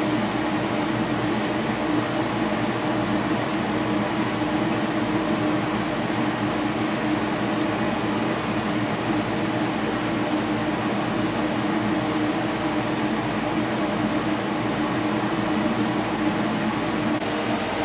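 Steady hum of the air-conditioning fan inside an enclosed Ferris wheel gondola, with an even whirring noise and a constant humming tone.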